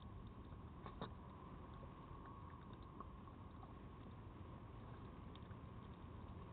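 Red fox feeding close to the microphone: a few faint clicks and crunches as it eats, the loudest about a second in, over a steady low hiss and a faint steady whine.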